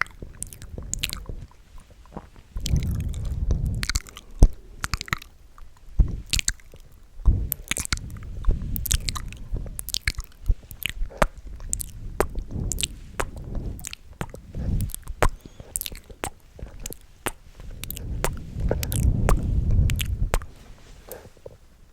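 Close-miked ASMR mouth sounds: many wet clicks and smacks of lips and tongue, with a few stretches of low rumbling noise between them.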